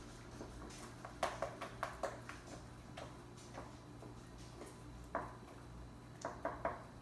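Wooden spoon clicking and knocking against a glass mixing bowl while stirring a thick glue and baking soda mixture, in uneven little runs of clicks: several about a second in, one just after five seconds, and a quick few near the end.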